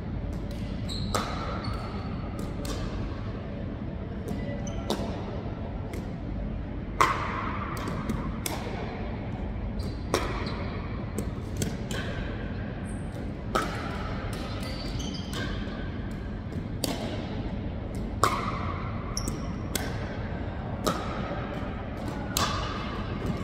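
Pickleball paddles striking a hard plastic pickleball, mixed with the ball bouncing on a hardwood floor: sharp, hollow pocks every one to three seconds, each ringing briefly and echoing around the gym hall. The hardest hits come about seven seconds in and again near eighteen seconds.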